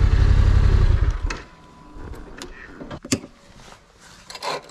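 Yamaha Ténéré 700 parallel-twin engine with an Akrapovič exhaust idling, then cut off suddenly about a second in. A few scattered clicks and knocks follow.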